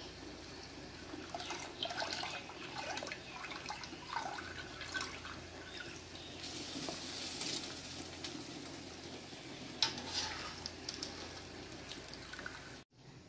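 Water splashing and dripping as soaked rice is scooped out of its soaking water with a wire skimmer and drained. There are scattered small clicks, with one sharper click about ten seconds in, and the sound cuts off abruptly just before the end.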